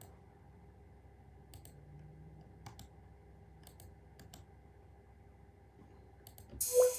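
Faint scattered clicks, a few seconds apart, over a low steady hum, in a pause between playbacks of an electronic beat. The beat starts again loudly near the end.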